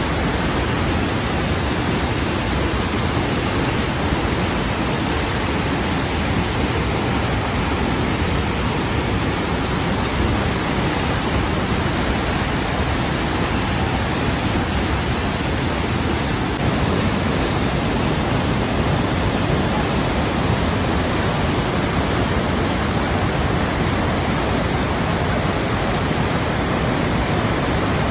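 Steady, dense rush of fast-flowing water. The sound changes slightly about two-thirds of the way through, turning a little brighter and hissier.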